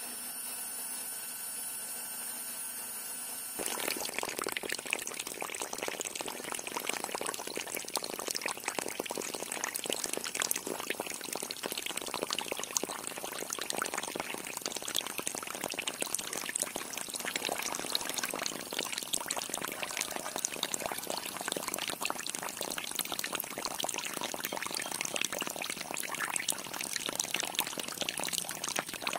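A thin stream of water pouring from a small pipe and splashing into a puddle, starting about four seconds in and running on steadily.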